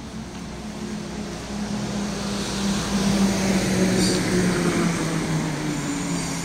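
A motor vehicle passing close by: its engine and road noise swell to a peak about three to four seconds in and then fade, the engine tone dropping slightly in pitch as it goes past, over steady street traffic noise.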